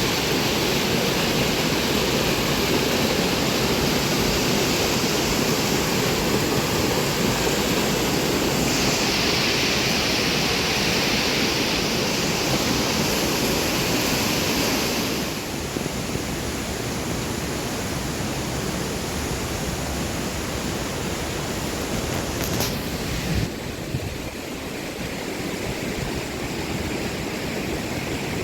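Steady rush of flowing water from a waterfall and river. It turns a little quieter and duller about halfway through, and there is a brief knock a few seconds later.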